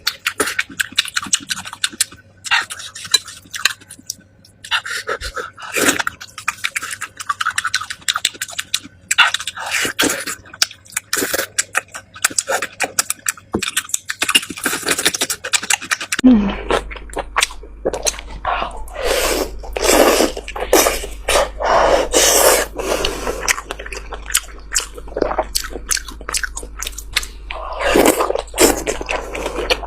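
Close-miked wet chewing and smacking of fatty meat, a quick irregular run of clicks and squelches. About halfway through, a steady low hum joins in under the chewing.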